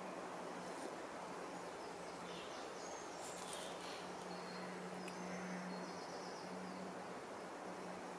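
Woodland ambience: a steady hiss with a low, steady hum under it, and a few brief high chirps about three to six seconds in.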